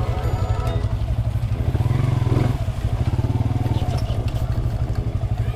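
Motorcycle engine running under way, a steady rumble with a brief surge in loudness about two seconds in.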